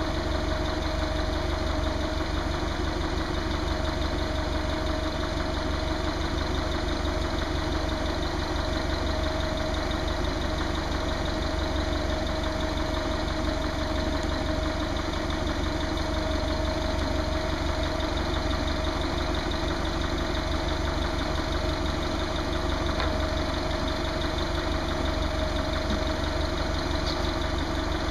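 Forklift engine idling steadily, with an even low pulsing and no revving.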